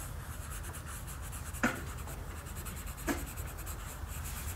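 Pencil held on its side shading on paper over a clipboard: a steady scratching of rapid back-and-forth strokes. Two short clicks about a second and a half apart.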